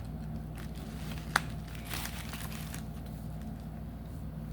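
Trading-card packs crinkling as they are handled and set down one by one, with one sharp click about a second and a half in, over a steady low hum.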